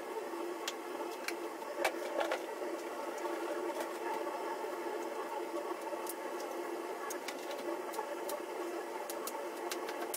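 Kitchen cooking noise as fish fries in a pan: a steady mechanical hum with scattered light pops and clicks, and a couple of sharper knocks about two seconds in.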